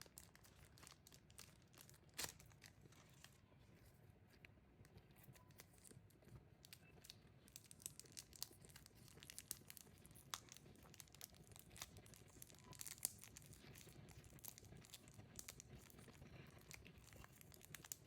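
Faint crinkling and tearing of plastic packaging around a photo card being unwrapped, a steady run of small crackles and rustles with a sharper snap about two seconds in.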